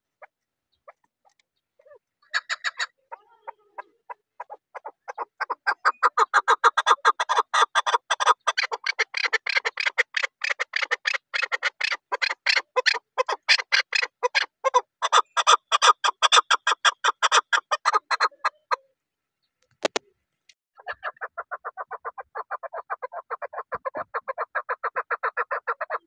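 Chukar partridge calling: a long run of rapid, repeated chuck notes that builds from a few scattered calls into a dense, loud series, then stops. After a brief pause and a single click, a second, quieter run of the same rapid notes starts near the end.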